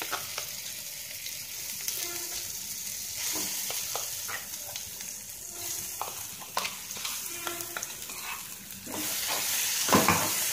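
Hot oil with a tempering of red chillies, dals and curry leaves sizzling steadily in a nonstick frying pan as thick ground chutney is added, with scattered light clicks and knocks of the utensil. Near the end it grows louder as the chutney is stirred and scraped through the hot oil.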